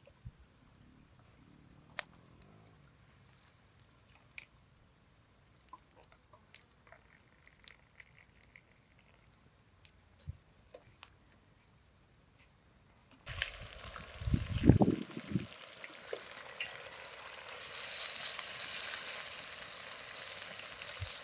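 A few faint clicks, then about two-thirds of the way through a sudden loud sizzling hiss starts and keeps going, as when food goes into hot fat in a cooking pot, with a few low knocks just after it begins.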